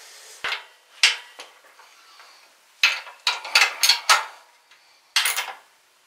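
Sharp metallic clinks and light rattles of motorcycle battery cables, their terminals and bolt hardware being handled and fitted by hand, in short clusters with brief pauses between.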